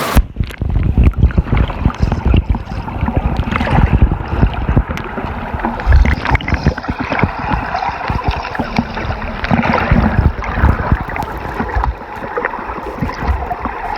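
Muffled water sloshing and bubbling, heard with the phone's microphone underwater: dense low thumps and churning with the high end cut off.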